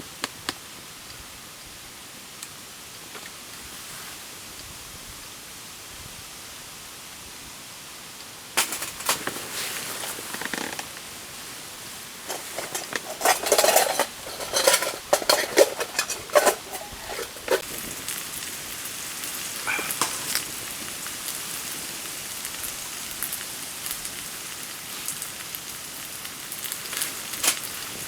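Campfire burning: a steady hiss, then from about eight seconds in, irregular crackles and clattering knocks, densest and loudest around the middle.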